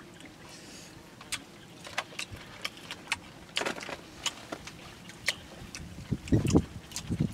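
Eating sounds: scattered small clicks and smacks of chewing and of fingers picking at grilled fish, with a brief low rumble about six seconds in.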